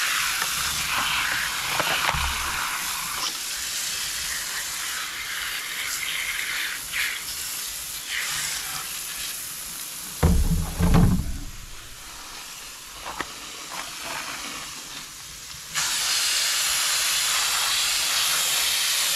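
Water spraying, rinsing dirt out of a robotic pool cleaner's filter: a steady hiss, with a couple of low thumps about ten seconds in. The spray gets suddenly louder and steadier in the last few seconds.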